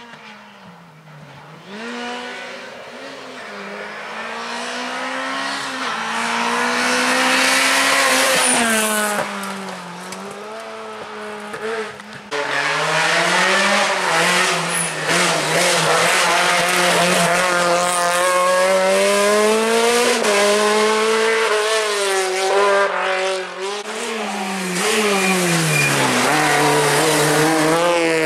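Rally car engines at full effort on a special stage, the engine note climbing and dropping repeatedly through gear changes and lifts as a car approaches and grows louder. About twelve seconds in the sound cuts abruptly to a nearer, louder car, a Peugeot 208 rally car, revving hard through the gears as it comes up and passes.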